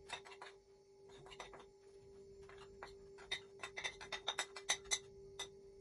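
Light clicks and taps of a plastic measuring cup scooping flour, sparse at first and coming thick and fast in the second half. A faint steady hum runs beneath.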